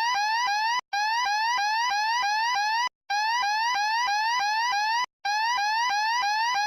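Electronic fire alarm sounder giving a fast rising sweep tone, about four sweeps a second, in runs of about two seconds with brief breaks between them.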